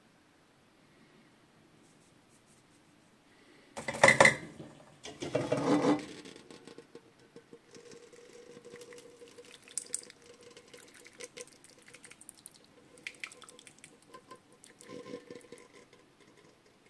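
Stew being ladled from a pot onto a plate of rice: the utensil makes scattered soft clinks and scrapes, with two louder bursts about four and five seconds in. A faint steady hum runs underneath.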